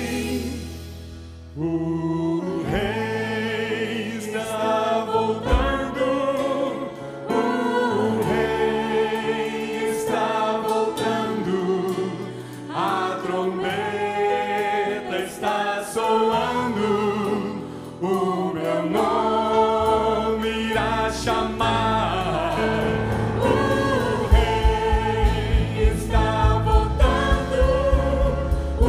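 Worship band performing a Portuguese gospel song: several singers in harmony over acoustic guitar, bass and keyboard. A steady low drum beat of about two a second comes in near the end.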